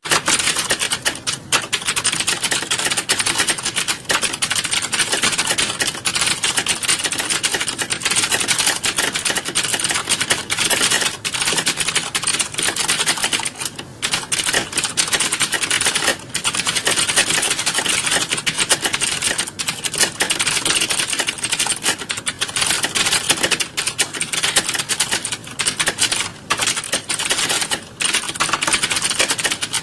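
Fast, continuous typing: a dense run of key clicks with a few brief pauses.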